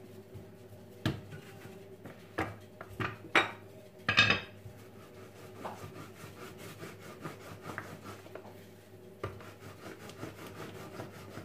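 Dough being worked on a floured countertop: several knocks in the first four seconds, the loudest two a little after three and four seconds in, then a plastic rolling pin rolling the dough out with a soft rubbing and light clicks.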